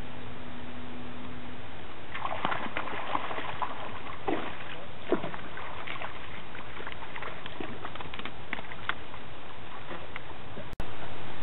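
A hooked white bass splashing in shallow water at the rocky bank as it is reeled in: a run of irregular splashes over several seconds, over steady hiss. Near the end the sound cuts out for an instant and returns as louder steady hiss.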